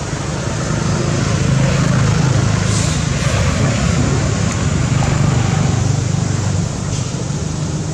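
Motor vehicle noise, growing louder about a second in and dropping back near the end.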